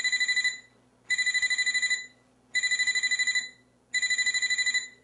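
Phone ringing with a high electronic trill, in bursts about a second long, one every second and a half.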